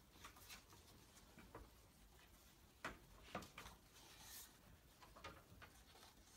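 Near silence with faint paper rustling and a few soft taps, the sound of sheet music being handled and set on a piano's music stand.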